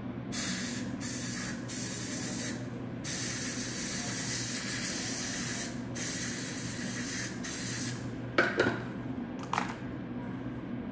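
Dental air-water syringe spraying into the mouth in about six hissing blasts, the longest nearly three seconds, stopping about eight seconds in. A few short sharp clicks follow near the end.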